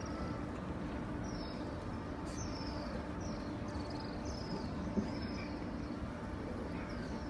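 Steady hiss of rain, with small birds chirping repeatedly over it in short, high, falling calls, and a single knock about five seconds in.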